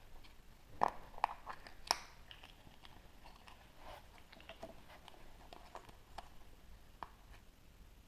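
Hands handling a chocolate surprise egg and its packaging: sharp cracks, three loud ones within the first two seconds, followed by scattered lighter clicks and crinkling.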